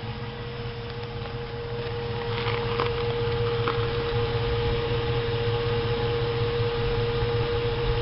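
2004 Jeep Grand Cherokee V8 idling with a steady, constant whine over the engine's low rumble, getting louder about two seconds in. The strange idle noise, which the owner thinks may be the fuel pump.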